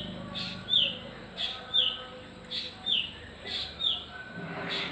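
A bird chirping repeatedly: short, falling notes coming in pairs, about one pair a second.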